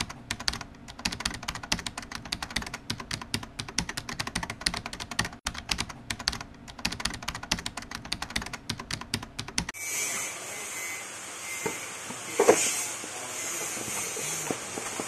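Rapid, irregular keyboard-typing clicks as a sound effect for about ten seconds, which cut off suddenly. Then a steady hiss with a plastic bag crinkling, loudest about two and a half seconds after the cut.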